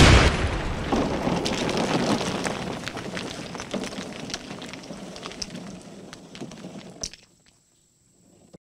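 Sound effect of a wrecking ball crashing through a wall: one loud crash, then a long rattle of falling, scattering rubble that fades over several seconds, with one more sharp hit about seven seconds in.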